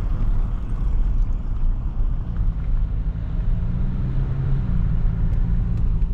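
Car driving: a steady low rumble of engine and road noise, with the engine's hum becoming clearer about two seconds in.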